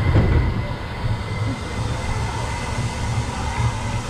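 Big Thunder Mountain Railroad mine-train roller coaster cars rolling along the track, a steady low rumble of wheels on rails heard from on board.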